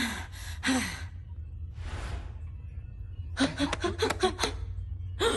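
A young woman's pained, breathless gasps and sighs, a few short ones at the start, one breath near the middle and another cluster near the end, over a low steady drone of background score.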